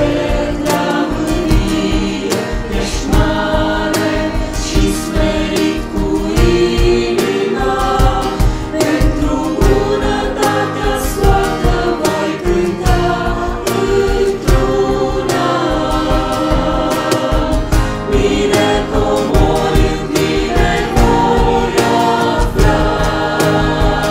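A mixed choir of men's and women's voices sings a Christian hymn in Romanian, with sustained, changing chords.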